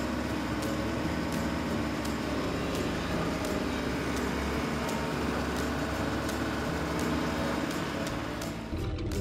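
Steady excavator engine sound running without a break while a toy digger scoops sand, with faint regular clicks; it stops near the end.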